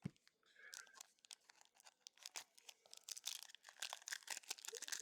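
Faint crinkling and rustling of a trading-card booster pack wrapper and cards being handled, in small scattered ticks that grow denser over the last two seconds.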